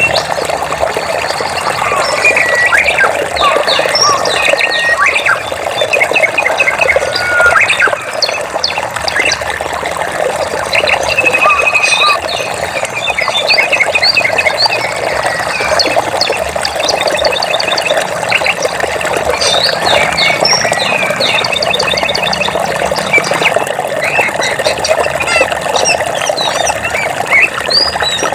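Running water trickling steadily, with many birds chirping and calling over it in short, quick notes.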